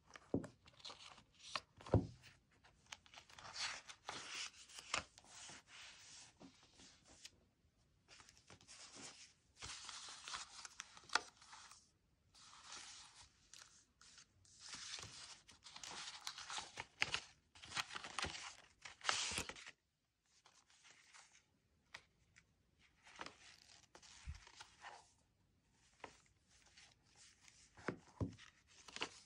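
Paper and plastic sticker packaging rustling and crinkling as it is handled, in bouts of a few seconds with short pauses between. A few soft knocks are mixed in.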